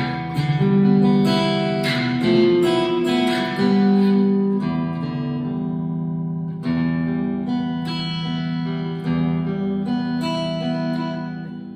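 Fender California Malibu acoustic guitar played through a Harley Benton tube amp with a little reverb: strummed chords, a new one every second or two, each left to ring out.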